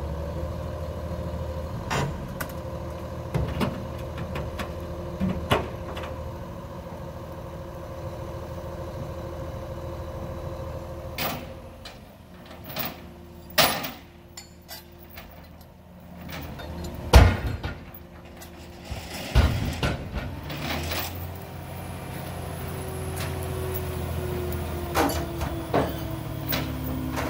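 A heavy diesel engine running steadily, with scattered sharp metal clanks and knocks from heavy steel being handled. The engine sound drops away for a few seconds past the middle, where the loudest single bang falls, then comes back and revs up near the end.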